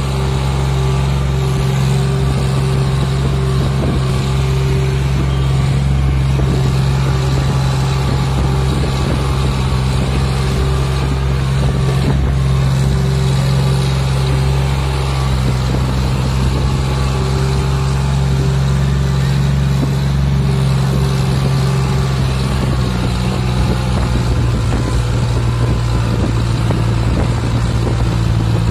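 John Deere 5036 D tractor's three-cylinder diesel engine running steadily under load as it hauls a loaded trolley. Its pitch shifts slightly near the end.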